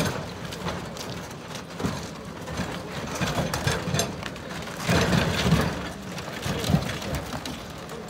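Big solid wooden wheels of a festival float rumbling and knocking as the float is hauled over railway tracks, with a few heavy thumps, the loudest cluster about five seconds in.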